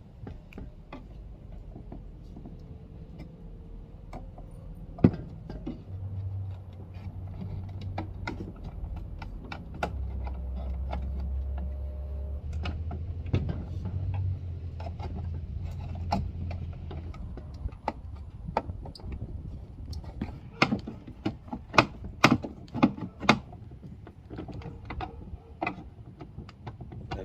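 Scattered small clicks and taps of a screwdriver working a stuck screw out of a plastic car armrest, growing busier toward the end. A low steady hum runs for several seconds in the middle.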